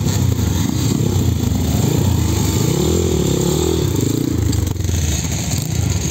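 Trail motorcycle engines running, with the pitch revving up and down a few times around the middle.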